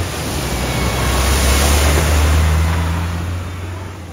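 A vehicle driving through a flooded ford: a low engine drone and the rush of water swell to a peak about two seconds in, then fade.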